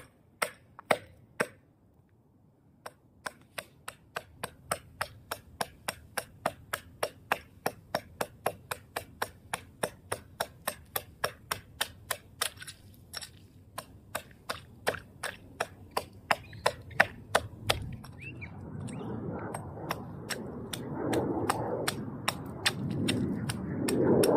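Ice chisel striking the ice over and over, about two sharp strikes a second, chopping a fishing hole. Near the end the strikes give way to a louder, rough noise that builds.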